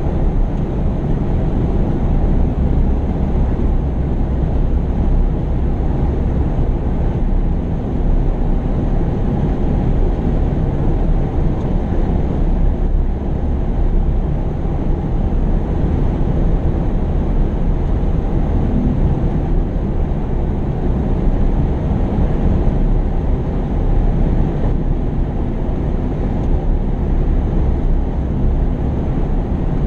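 Heavy earthmoving machinery's diesel engine running steadily, loud and low-pitched, with no distinct knocks, revs or changes.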